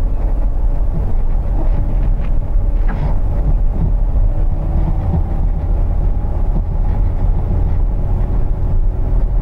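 A car driving along a paved road: a steady low rumble of engine and tyres, with a faint hum of engine tones above it.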